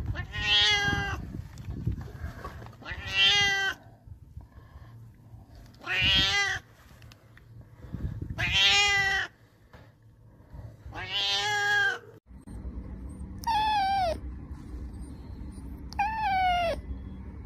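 A cat meowing five times, long drawn-out meows a couple of seconds apart. About twelve seconds in, it gives way to a kitten's two shorter, higher meows that fall in pitch.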